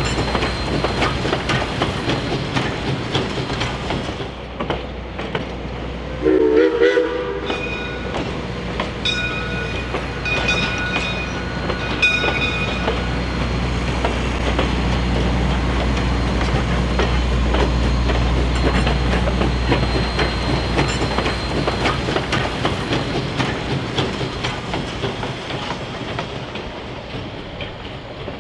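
A 1920 Baldwin 0-6-0 steam locomotive running, with steady exhaust chuffing and rail clatter. A short whistle blast about six seconds in is the loudest moment, and the sound fades near the end.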